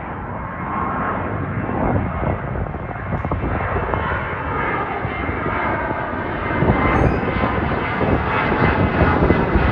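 Boeing 737-700 airliner climbing overhead, its twin CFM56 turbofan engines giving a steady jet roar that grows louder over the last few seconds as it nears.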